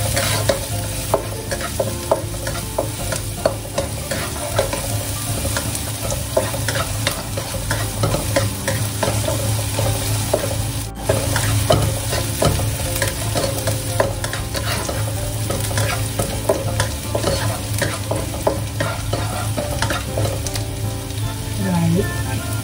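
Chopped shallots and ginger sizzling in hot oil in a wok, with a spatula scraping and tapping the pan many times as they are stirred.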